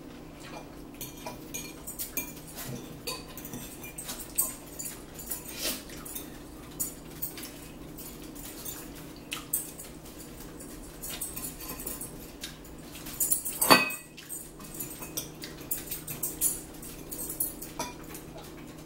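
Metal fork clinking and scraping against a ceramic bowl of salad, along with chewing and mouth sounds, in short scattered clicks. The sharpest clink comes about two-thirds of the way through. A low steady hum runs underneath.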